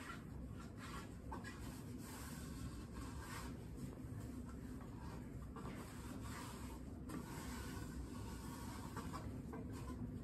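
Microfiber cloth rubbed back and forth along a ceiling fan blade, a series of soft irregular swishing strokes, over a low steady hum.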